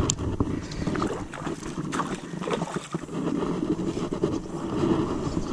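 A hooked golden perch (yellowbelly) splashing at the surface beside a kayak as it is brought in, with irregular splashes and small knocks.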